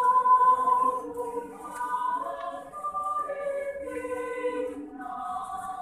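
Women's choir singing held chords in several parts, the voices moving to new notes together a little after two seconds in.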